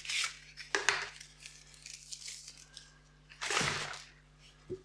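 Packaging being handled by hand: several short rustling, crinkling noises, the longest and loudest about three and a half seconds in, with a small click near the end.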